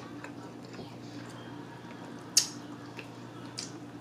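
Close-up eating sounds of a person eating fried chicken: soft, wet mouth noises with one sharp, loud smack a little past halfway and a fainter one near the end, over a steady low hum.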